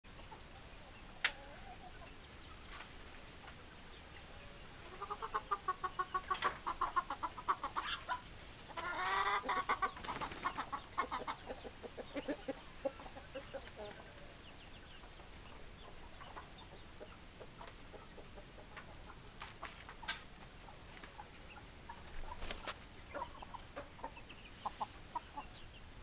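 Rooster clucking in two fast runs of rapid pulsed notes, the first about five seconds in and the second about nine seconds in, followed by softer scattered clucks. A few sharp clicks stand out between them.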